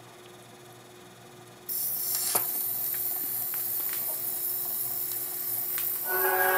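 Restored RCA RE-45 record player starting a record from the late 1920s or early 1930s: a faint steady hum, then about a second and a half in the surface hiss of the old record comes in suddenly, with scattered clicks, and the music begins just before the end.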